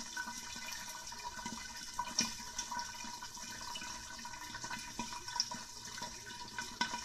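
Hot oil sizzling and crackling in a lidded wok as popcorn kernels heat, with a steady hiss and frequent small spits and ticks; the kernels are not popping yet.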